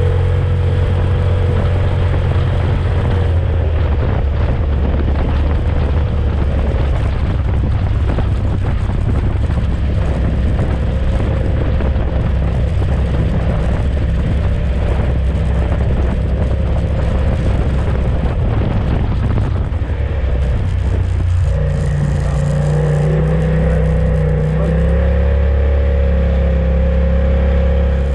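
UTV engine and drivetrain running under way, a steady low drone with a higher whine over it. Dense rattling and knocking run through most of it and ease off about three-quarters of the way in, where the engine note settles.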